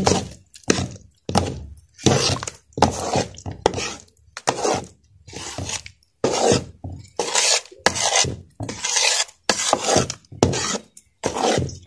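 Metal ladle scraping around a large metal pot as thick besan barfi mixture, just combined with sugar syrup, is stirred well. The strokes come in a quick rasping rhythm of about two to three a second.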